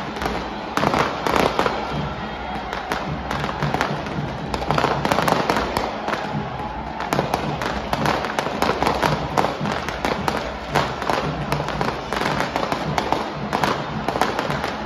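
Aerial fireworks going off over stadium stands: a dense, irregular string of sharp pops and crackling bangs, many each second, over a steady din.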